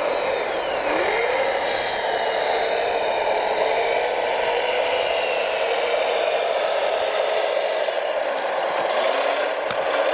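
Electric drive motors and gearing of radio-controlled model construction machines whining steadily, the pitch dipping and rising again about a second in as the speed changes. A few light clicks near the end.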